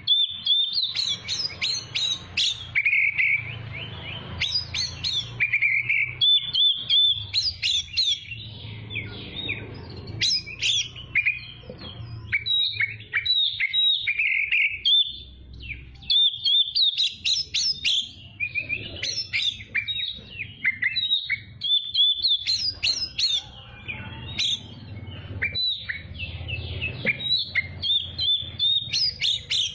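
Oriental magpie-robin (kacer) singing a long, varied song of clear whistles, quick chirps and trills, phrase after phrase with short pauses between.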